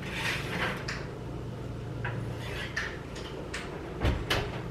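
Oven door being opened and a metal sheet pan drawn out over the wire oven rack: a rustle at the start, a few light metallic clicks and rattles, and a heavier knock about four seconds in, over a low steady hum.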